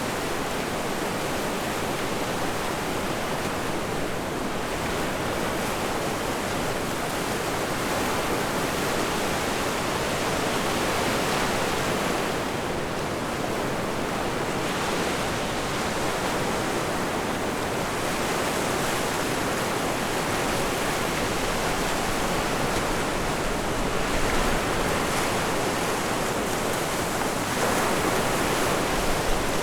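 Ocean surf and wind on a beach: a steady rush of noise that swells a little now and then.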